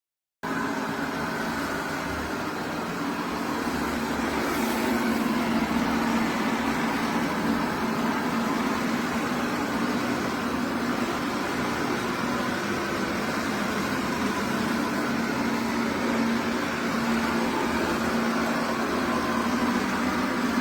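MONSGA robot vacuum's suction motor running steadily: a constant low hum over airflow noise, cutting in suddenly just after the start.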